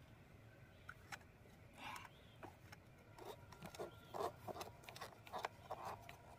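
Faint scraping, rubbing and small clicks of fingers threading a nut by hand onto a speaker's mounting bolt, the handling noise coming in short irregular bursts that grow busier in the second half.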